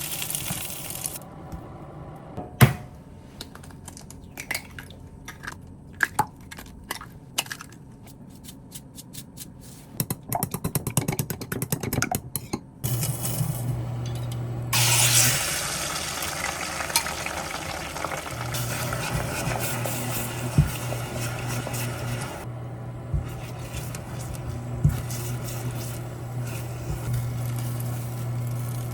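Kitchen work sounds: dishes and utensils clinking and knocking, with a quick run of ticks about ten seconds in. Then a steady low hum with a hiss starts and keeps going for the rest of the stretch.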